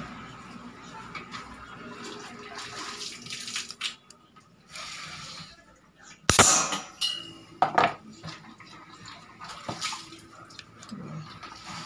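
Airgun parts and tools handled at a workbench: scattered clicks and light knocks, a short steady hiss around five seconds in, then two sharp knocks a little past halfway as the black receiver is picked up and turned over.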